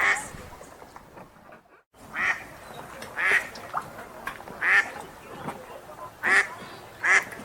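Wild ducks quacking: about six single quacks, roughly a second apart, over a low outdoor background. There is a brief drop to silence just before two seconds in.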